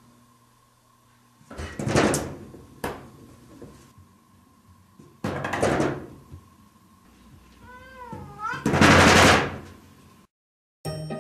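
Cat banging against a wooden sliding door with frosted glass panes, three loud rattling bangs about two, six and nine seconds in. A single meow with a wavering pitch comes just before the last bang.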